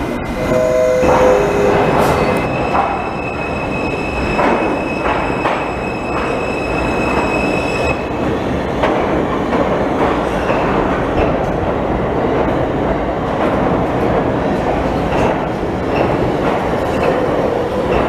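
Stainless-steel New York City subway train running alongside the station platform: a steady rumble and rattle of steel wheels on rail, with a thin, steady high squeal from the wheels for several seconds early on. A few short descending tones sound about a second in.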